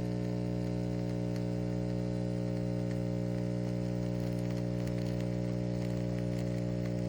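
CASABREWS espresso machine's pump running while a shot brews: a steady low hum that holds level throughout.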